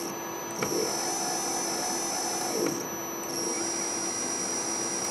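Stepper motor driven by an old MaxNC CNC control board, running with a steady high whine in three stretches, broken by two short pauses just after the start and about three seconds in. Its X-axis driver is missing a MOSFET, which the owner suspects leaves the motor being run on only one coil.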